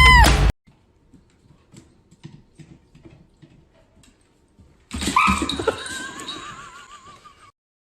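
Faint scattered clicks, then about five seconds in a loud animal call that starts with a sharp cry and settles into a long wavering, trembling tone before fading out about two and a half seconds later.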